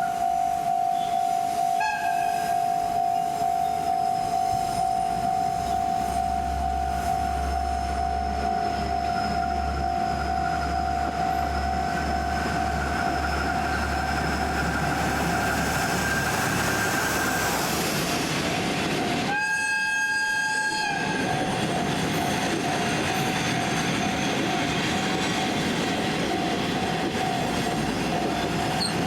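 Level-crossing warning signal ringing steadily with a pulsing tone while a train approaches and runs past with a rising rumble. About two-thirds of the way through, the train sounds its horn once for about a second and a half.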